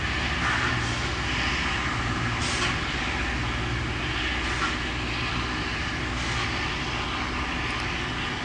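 Distant diesel locomotive rumbling steadily, with short hisses of air about two and a half and six seconds in.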